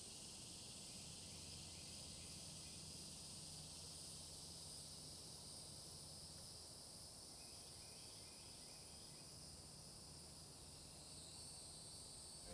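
Faint, steady, high-pitched insect chorus in outdoor natural ambience.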